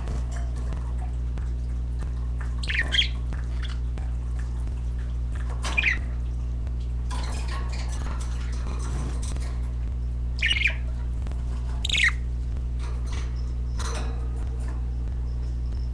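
Pet budgerigars giving about five short, sharp squawks and chirps, over a steady low hum.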